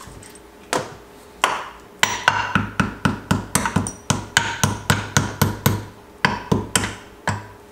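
Right crankshaft main seal of a Yamaha YZ250 two-stroke engine being tapped into its bore in the crankcase with a hammer: two single taps, then a fast run of sharp taps, about five a second, with a short pause near the end.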